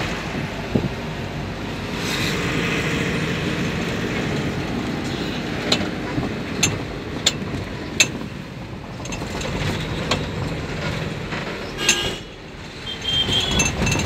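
Cabin noise of a van on the move: steady engine and road rumble, with several sharp clicks and rattles from about six seconds in.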